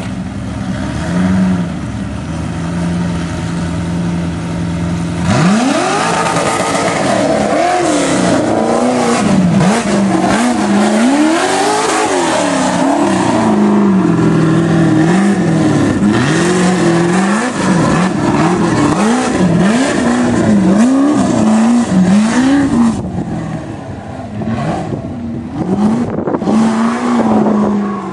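Ultra4 rock-racing buggy's engine idling steadily, then revving hard about five seconds in as it launches off the start line. Its pitch then rises and falls again and again under the throttle, drops back briefly near the end, and picks up again.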